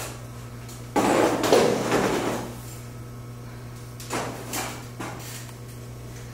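Metal folding chair scraping and sliding across the stage floor for about a second and a half, then a few smaller scuffs and knocks near the middle as it is sat on, over a steady low hum.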